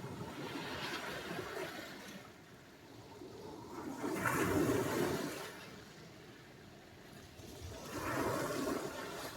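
Sea surf: waves washing onto the shore in three surges of rushing water, about four seconds apart, each swelling and fading away, the middle one the loudest.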